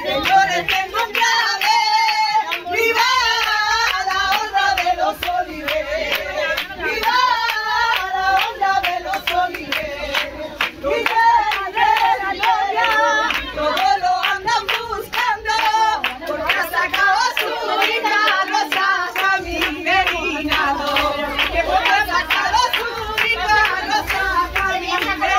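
A crowd singing together and clapping along in a steady rhythm.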